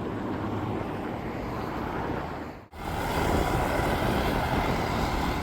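Steady road traffic noise from vehicles crossing a suspension bridge, mixed with wind on the microphone. It cuts out for an instant about halfway through and comes back a little louder.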